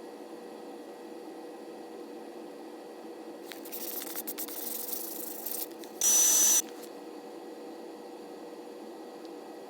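Aerosol lacquer spray can giving one short, loud hiss about six seconds in, with a thin steady whistle in it, as the finish is sprayed. It is preceded by a couple of seconds of fainter, uneven hissing, all over a steady background hum.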